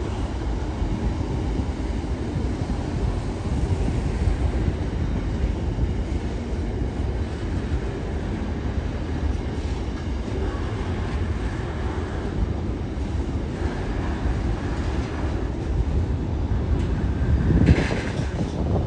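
Intermodal freight train's container wagons rolling past, a steady low rumble of steel wheels on rail with some clickety-clack, and a brief louder clatter near the end.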